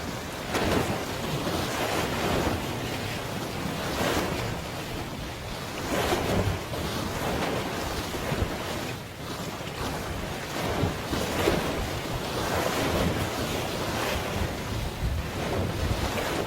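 Sea waves washing in repeated surges, with wind rumbling on the microphone.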